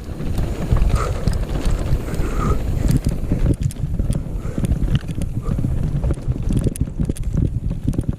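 Mountain bike descending a rough downhill trail: wind buffeting the microphone over the rumble of tyres on dirt and a constant clatter of knocks and rattles as the bike runs over rocks and roots.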